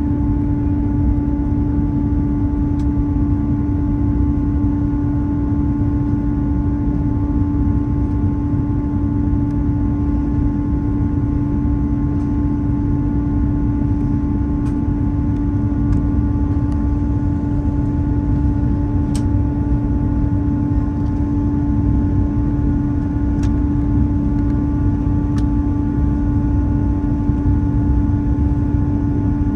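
Jet airliner cabin noise: a steady rumble of engines and airflow with a constant low hum, and a few faint ticks.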